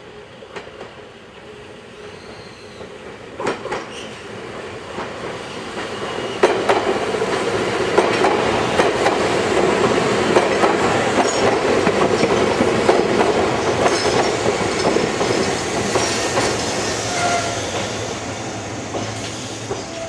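A Meitetsu 7700 series electric train approaches and passes close by as it pulls into the station. Its wheels clack sharply over the rail joints, growing louder to a peak about midway, with a few brief high wheel squeals, then fading as the train goes by.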